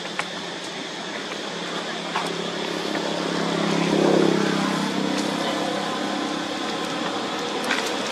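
A motor vehicle passes, its engine hum swelling to a peak about four seconds in and then easing off. A steady high hiss runs underneath, with a few faint clicks.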